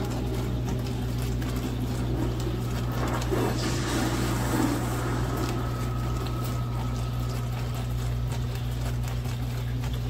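IAGREEA portable countertop dishwasher running: a steady motor hum with water splashing and sloshing inside the tub.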